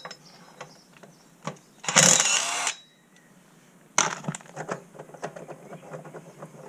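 Cordless impact wrench run in one short burst of under a second, about two seconds in, undoing a nut that holds an ATV wheel spacer to the hub. About four seconds in comes a sharp metal knock, then light clicks and rattles as the spacer is worked loose.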